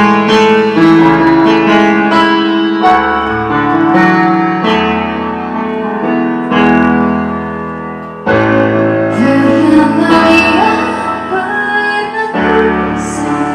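Background music played on a piano or keyboard: slow sustained chords that change every second or two.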